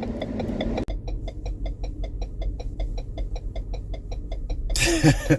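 Ford Explorer turn-signal indicator ticking rapidly and evenly at hyper-flash speed: the sign that the LED bulbs draw too little current for the stock flasher. The idling engine is heard underneath.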